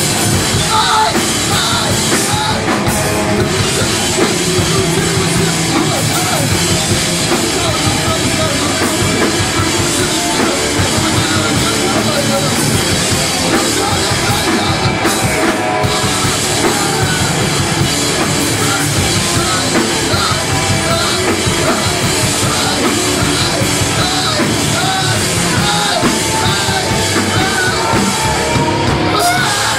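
Live rock band playing loud, with electric guitars, bass guitar and drum kit going without a break.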